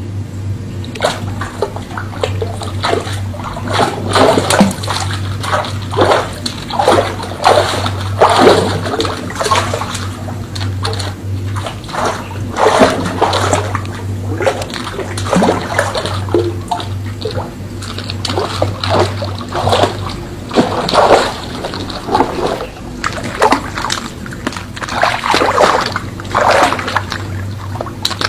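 River water splashing and sloshing irregularly, again and again. A steady low hum runs under it for the first twelve seconds or so and returns near the end.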